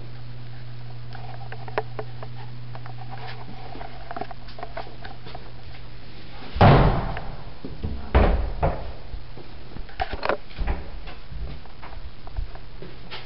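A wooden door banging shut about halfway through, followed about a second and a half later by a second, smaller knock and a few light clicks, over a steady low hum.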